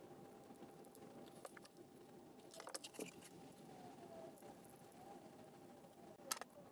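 Near silence with a faint steady hum, broken by a few small clicks and rattles, likely from the instrument cluster's small plastic and metal parts being handled, about a third of the way in and again near the end.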